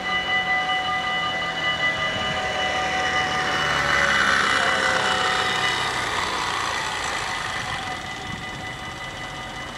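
Dutch level-crossing warning bells ringing steadily while the half barriers lower. A louder rushing swell rises about three seconds in, peaks around four to five seconds, then fades, and the bell sound thins out toward the end.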